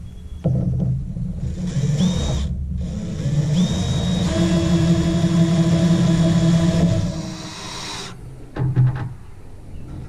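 Cordless DeWalt drill driving 3½-inch deck screws into pressure-treated boards. The motor whine rises twice as it spins up, then runs steadily under load for about three seconds and stops, with one short burst of the drill near the end.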